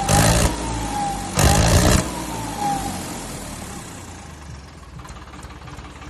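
Farmtrac 60 tractor's diesel engine blipped twice, with a fitted turbo-style whistle sounding over the revs; the whistle falls in pitch and fades as the engine settles back to a steady idle.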